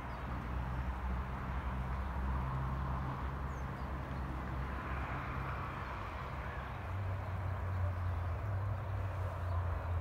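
Outdoor ambience: a steady low rumble with a soft hiss, and a few faint bird chirps.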